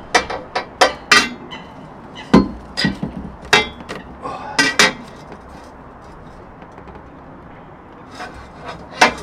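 A steel cross piece knocking and clanking against the metal brackets of the frame as it is set in place: a quick run of sharp knocks over the first five seconds, a lull, then one more knock near the end.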